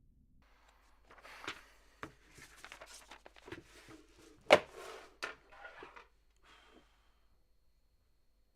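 Rustling and a series of irregular knocks in a small room, the loudest a sharp thump about four and a half seconds in.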